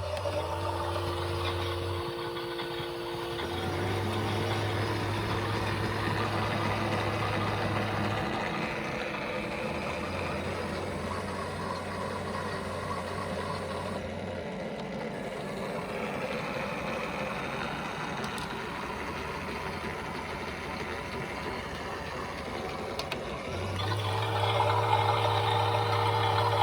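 Several battery-powered toy washing machines running at once, their small motors whirring as the drums turn. A motor whine rises and levels off just after the start and again about 24 seconds in. A low hum cuts in and out every few seconds.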